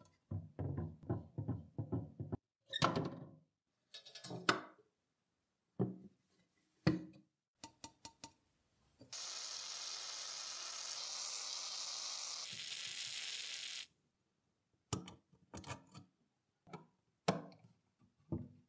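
A rusty cast-iron mechanical coin bank is handled, giving a quick run of knocks and then scattered clicks and taps. About halfway through, an aerosol spray can hisses steadily for about five seconds as penetrating spray is blown through a straw nozzle into the rusted mechanism. Near the end a screwdriver makes sharp clicks on a rusted screw.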